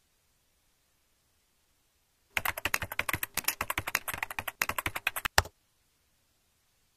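Fast typing on a computer keyboard, starting about two and a half seconds in and lasting about three seconds, ending with one harder keystroke.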